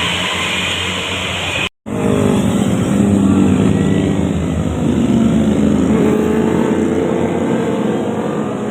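A large road vehicle's engine, most likely a bus, running and pulling past with its pitch shifting gently. Before it, a brief cut about two seconds in.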